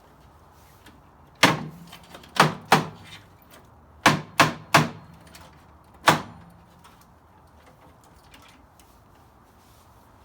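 Seven sharp hammer blows in uneven groups (one, then two, then three, then a last one), knocking at a part of the console stereo's cabinet to drive it loose.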